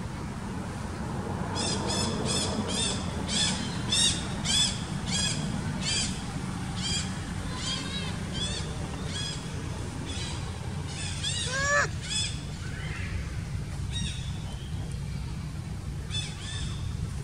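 Repeated short, arched animal calls, about two a second for several seconds, then a few louder, lower calls near the middle and the end, over a steady low rumble.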